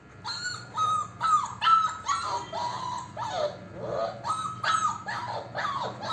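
Five-week-old German Shepherd puppies whining and yelping: a quick run of short, high cries, several a second.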